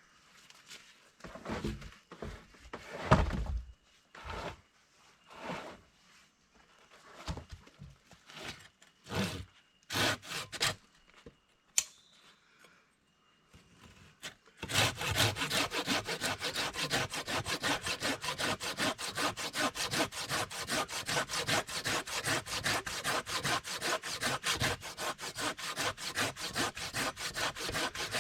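Scattered knocks and scrapes of wood being handled. About halfway in, a hand saw starts cutting through timber in quick, even back-and-forth strokes.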